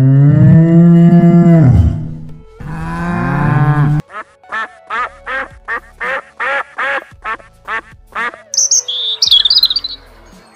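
A cow mooing: two long, low moos with the pitch rising. Then a rapid run of about a dozen short calls, roughly three a second, and a few brief high bird chirps near the end.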